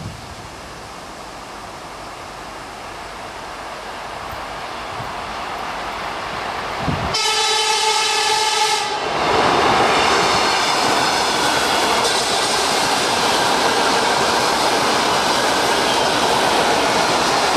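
ЭМ2К electric multiple-unit train approaching, growing steadily louder, and sounding its horn for about two seconds about seven seconds in. Then it passes close by with loud, steady running noise of wheels on rails.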